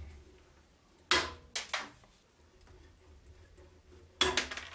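Diagonal cutters biting on the steel rivets of a rusty knife's tang: two sharp metallic snaps about three seconds apart, the first followed by a couple of smaller clicks.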